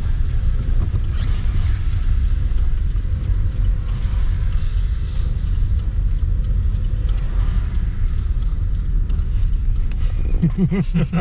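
Steady low road and engine rumble heard from inside a moving car, with a voice starting near the end.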